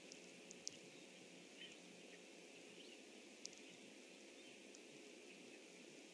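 Near silence: faint steady hiss of an outdoor pond microphone, with a few brief faint high ticks.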